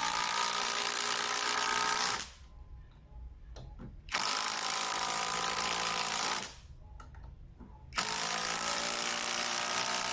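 SfunPro 16V cordless impact driver driving a long screw into a hard tamarind-wood log, in three runs of about two seconds each with short pauses between.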